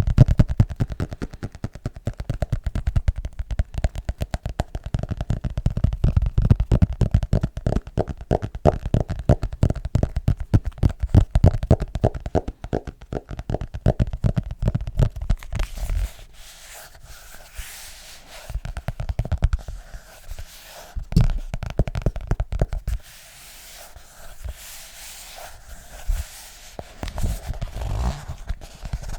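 Rapid hand tapping on an object, many taps a second, for about the first fifteen seconds, then softer, sparser taps with some scratching.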